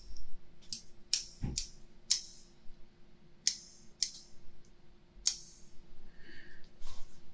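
Haircutting scissors snipping close to a binaural microphone: about seven sharp, crisp snips at irregular intervals, with a low thump about a second and a half in.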